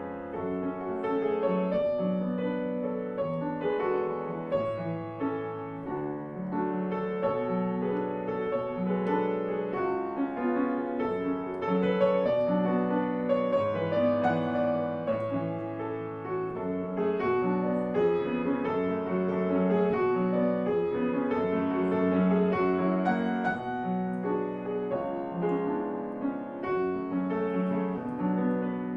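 Grand piano played solo, a classical piece in a continuous run of notes and chords at an even, moderate loudness.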